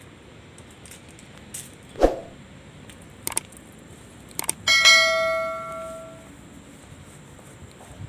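A single bell-like metallic ring about five seconds in, fading away over a second and a half. A short sharp sound comes about two seconds in, and a few light clicks come before the ring.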